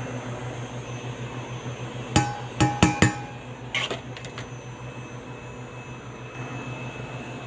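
A metal measuring cup knocked against the rim of a stainless-steel mixing bowl four times in quick succession about two seconds in, each knock ringing briefly, followed by a couple of lighter clinks. These are the taps that shake out the last of the flour. A steady low hum runs underneath.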